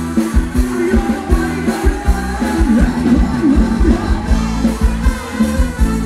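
Thai ramwong dance music from a live band, with a steady drum beat, a deep bass line and a voice singing a wavering melody.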